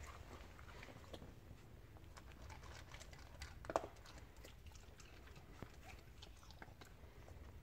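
Faint, scattered crunching and clicking of a dog eating dry kibble from a stainless steel bowl, with one louder click about three and a half seconds in.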